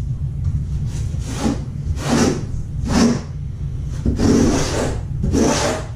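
Steel trowel scraping over thinset mortar in a series of rasping strokes, roughly one a second, working the mortar under and around the Kerdi waterproofing band.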